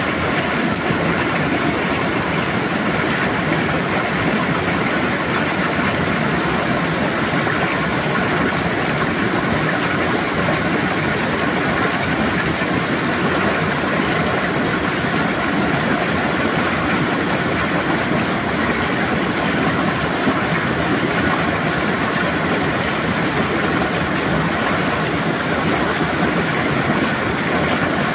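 Small rocky stream cascading down between boulders, the water splashing over the stones in a loud, steady rushing.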